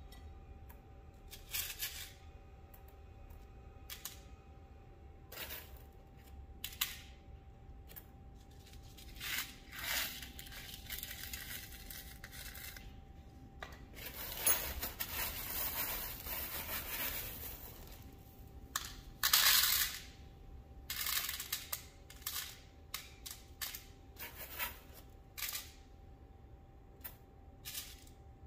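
Small pieces of coarse glass frit clicking and clinking as they are picked up, dropped into a plastic cup and set into a heart mold, many light taps throughout. About halfway through comes a few seconds of plastic zip-bag rustling, then a brief louder rattle.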